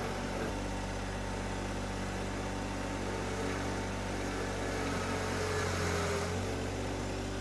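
John Deere 1025R compact tractor's three-cylinder diesel engine running steadily while the front-end loader bucket pushes into a dirt pile, its low note shifting briefly about five seconds in.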